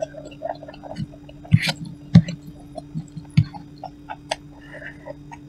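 Eating sounds of noodles being chewed: scattered short wet clicks and smacks, with a few louder knocks, over a steady low electrical hum.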